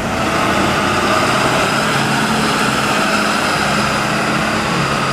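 Engine of a Ford Super Duty–based wildland fire truck running steadily as it pulls out and drives away.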